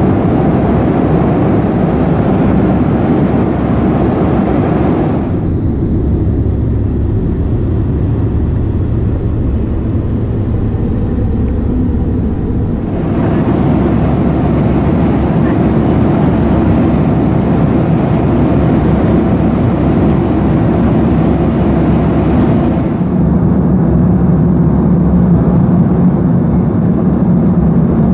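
Steady cabin noise of an Airbus A340-300 in cruise: a low rumble of airflow and engines. The tone shifts abruptly about five, thirteen and twenty-three seconds in.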